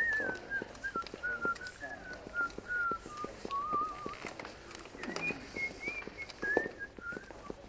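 A person whistling a slow tune, the pitch stepping gradually lower over the first four seconds, breaking off, then starting again higher for a couple of seconds; small clicks and knocks scattered through it.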